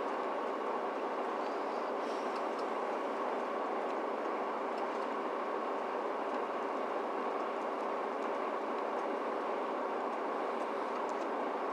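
Steady running noise of a Mercedes-Benz Citaro C2 G articulated city bus with an upright Euro 6 rear engine, heard from inside the passenger compartment, with a few faint ticks.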